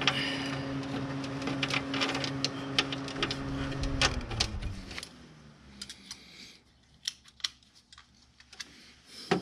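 Light metallic clicks and clinks of a wrench and hand working 10 mm bolts off an oil cooler bracket, irregular and scattered. Under the first half a steady machine hum drops in pitch and stops about four to five seconds in, leaving only the clicks.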